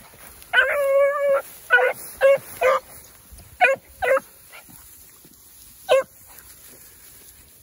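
Beagle puppies baying as hounds do on a rabbit's trail: one long drawn-out bawl about a second in, then a string of short, high yelping calls that thin out and stop after about six seconds.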